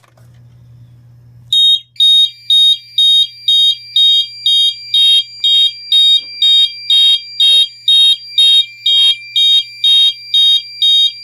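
Fire alarm mini horns (Potter MH-12/24-TW and GE/EST 682-1C) start about a second and a half in and sound loud, high, pulsing blasts at a bit over two a second, the Double-Time signal from a Potter PFC-6006 panel. A fainter steady tone runs under the pulses from about two seconds in.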